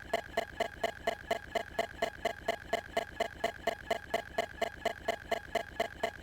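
Rapid, perfectly even ticking, about four or five ticks a second, over a steady high tone.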